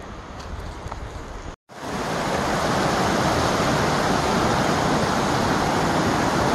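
Mountain creek rushing over rocks, a loud steady water noise that comes in abruptly about a second and a half in after a brief dropout. Before it there is a quieter outdoor background with a few faint clicks.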